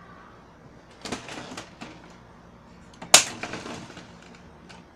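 Plastic clicks and rattles from an HP Color LaserJet printer as its front door is opened and the toner cartridge drawer is pulled out, with one sharp loud clack about three seconds in.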